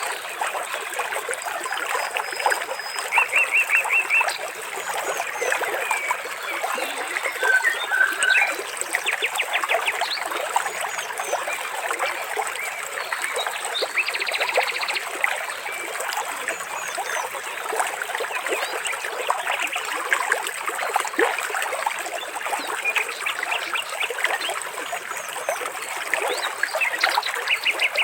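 Water trickling and splashing steadily, with birds chirping over it in short rapid series of notes that recur every few seconds.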